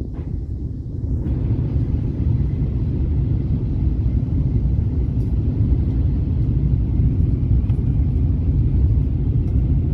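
Steady low rumble of a moving vehicle, building over the first second or so and then holding even.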